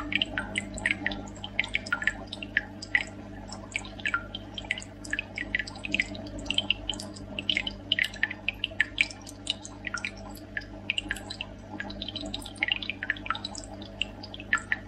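Underwater sound on a reef: a dense, irregular run of small clicks and pops, several a second, over a steady low hum.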